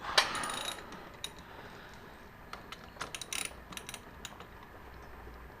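Half-inch-drive socket ratchet on a motorcycle's front brake caliper bolt: a sharp crack just after the start as the bolt breaks loose, then scattered runs of ratchet clicks as it is turned out.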